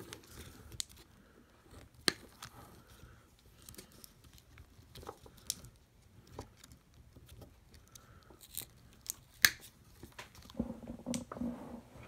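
Quiet, scattered clicks, snips and crinkles of red-handled diagonal side cutters and fingers working the wires and cardboard insulator of a Ni-Cd battery pack. The sharpest snap comes about nine and a half seconds in, with another about two seconds in.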